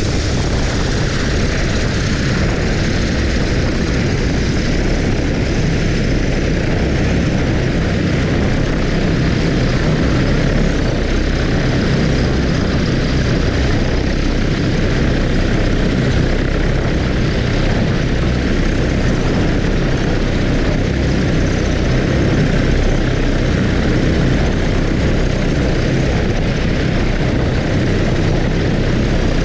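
DJI Agras T40 agricultural drone hovering low overhead, its multirotor propellers making a loud, steady whirring noise that holds unchanged throughout.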